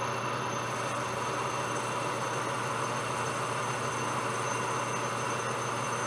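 Metal lathe running steadily while boring out the centre of a solid brass bar, a constant even machining noise with no change in speed.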